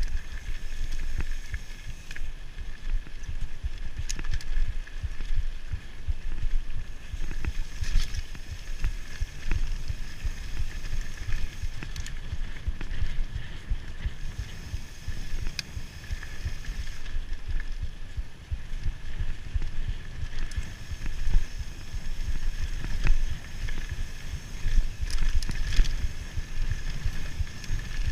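Mountain bike riding fast down a dirt trail: a steady rumble of tyres and wind on the rider's camera microphone, with frequent knocks and rattles from the bike over bumps.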